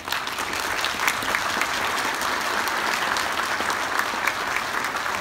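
A large seated audience applauding: many hands clapping together, breaking out at once and holding steady and loud.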